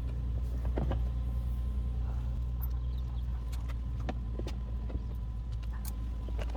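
Scattered clicks and light knocks of self-tapping screws being worked by hand into a plastic fender flare with a screwdriver, over a steady low hum.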